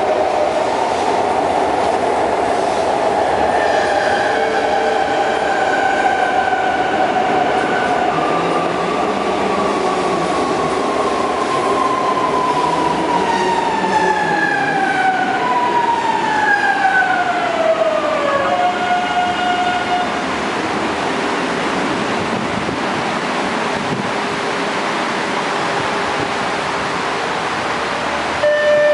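CPTM series 9000 electric commuter train running into the platform and braking to a stop, its wheels rumbling on the rails. Several motor whines glide steadily down in pitch as it slows, then give way to a steady hum once it has stopped, a little before halfway through.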